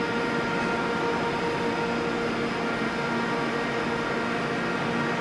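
Class 390 Pendolino electric train moving slowly into the platform: a steady hum with several constant whining tones over an even hiss.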